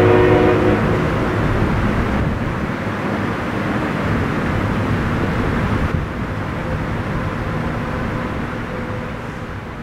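A steady engine drone over broad outdoor noise, fading out near the end.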